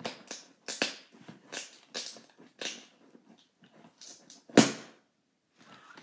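Short, uneven scraping strokes of a small blade slitting the packing tape on a cardboard box. About four and a half seconds in there is one loud, sharp sound.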